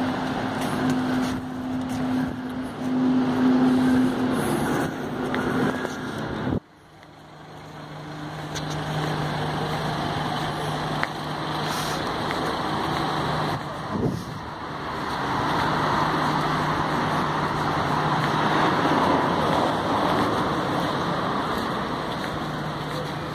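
Road traffic on a city street: a steady hum of engines over a wash of traffic noise. The sound drops out suddenly about six and a half seconds in and swells back within a couple of seconds.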